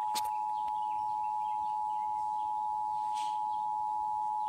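Emergency Alert System attention signal: two steady tones sounding together as one harsh chord, held at an even level, announcing an emergency alert broadcast.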